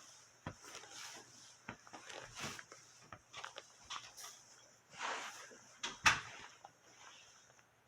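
Irregular knocks, taps and scuffs from a Bengal cat playing with a baseball, the loudest knock about six seconds in.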